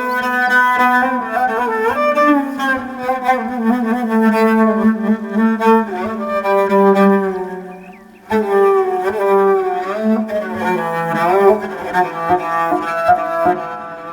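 Instrumental opening of a Turkish folk song, a melody led by bowed strings, in two phrases with a brief break about eight seconds in.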